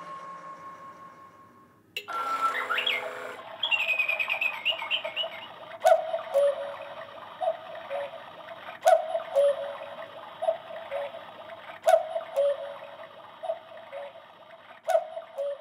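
Cuckoo clock ticking, a sharp tick-tock pair about every second and a half, starting about six seconds in. It is preceded by a short sliding, chirping sound.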